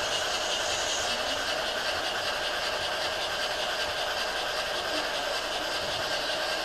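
Steady running noise of gauge 1 model trains on a large layout: an even rolling and motor hum with no single event standing out.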